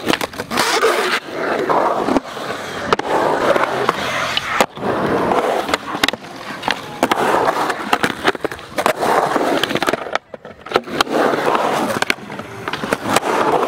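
Skateboard wheels rolling on concrete, close by, broken by repeated sharp clacks as the board is popped, flipped and landed, and its tail and trucks strike the ground and the ledge.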